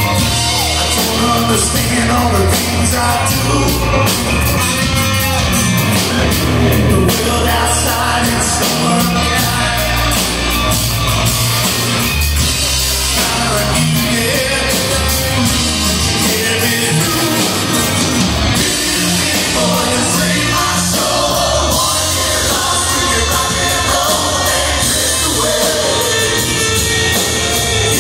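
Live hard rock band playing loudly and continuously, with distorted electric guitar over bass and drums.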